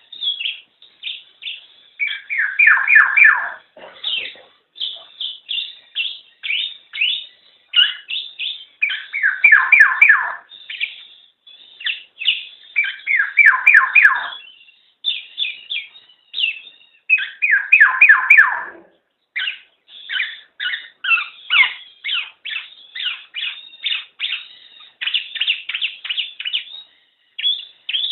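Black-naped oriole calling: a steady run of short chirps, broken four times by louder, lower-pitched bursts of rapid notes.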